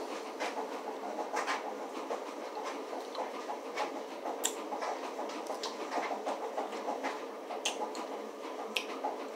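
Chewing a caramel and peanut-butter hard candy and handling candy wrappers: scattered small clicks and crinkles over a steady background hiss.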